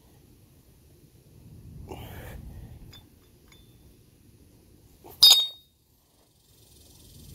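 A 53 lb length of steel railroad rail with its bolt is set down hard, landing with one sharp metallic clank that rings briefly, about five seconds in. Before it, a hard exhale of effort during the press.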